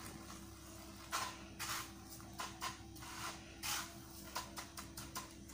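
Hands pressing and turning a raw chicken piece in a plate of dry breadcrumb, cornflour and flour coating: irregular soft rustling of the crumbs, several short rustles a second.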